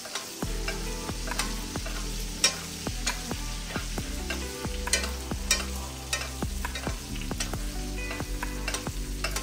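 Ribeye steak frying in a pan of browning butter as it is basted: a steady sizzle broken by sharp, irregular pops and clicks several times a second.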